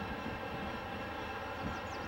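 Approaching diesel freight locomotive's engine running with a steady drone over a low rumble from the train.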